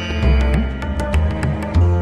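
Background music: held melodic tones over a deep bass beat and light percussion ticks.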